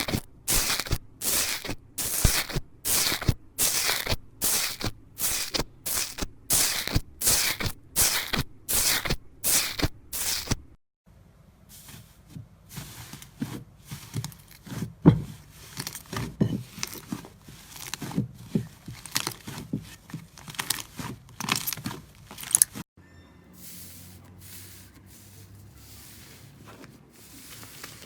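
Slime being squeezed and pulled by hand, making crackling, crunchy pops. For the first ten seconds it goes in a steady rhythm of about two squeezes a second; after a sudden cut the crackles come irregularly, and after a second cut near the end the handling is quieter.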